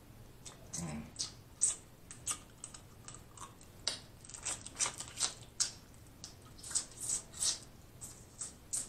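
Boiled crawfish shells crackling and snapping as they are peeled by hand, with wet eating sounds from close to the mouth. The clicks come irregularly, several a second in clusters.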